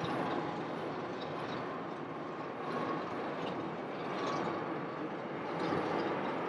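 Jet airliner engines heard at a distance: a steady rush of noise with a faint high whine, as an airliner slows on its landing rollout.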